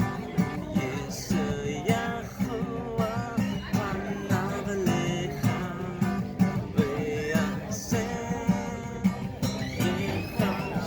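Worship music: acoustic guitar strummed with a voice singing over it.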